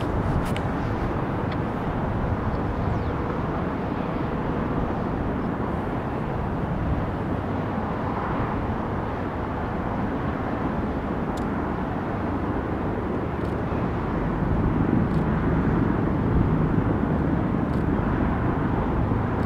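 Steady rumble of a distant formation of aircraft flying past outdoors, growing louder about three quarters of the way through.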